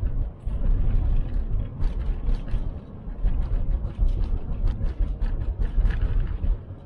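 Cabin noise of a VW T4 Transporter van on the move: a low engine and road rumble that swells and dips, with scattered short knocks and rattles.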